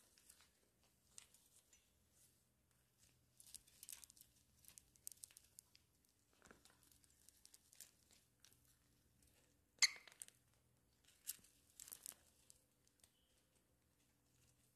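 Faint scratching and clicking of lovebirds climbing about and nibbling on a crystal chandelier's metal frame and glass drops, with one sharper click about ten seconds in.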